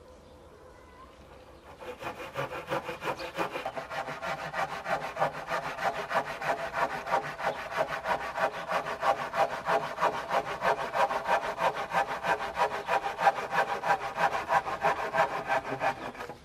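Hand saw cutting through a wooden plank in quick, even back-and-forth strokes. It starts about two seconds in and stops abruptly near the end.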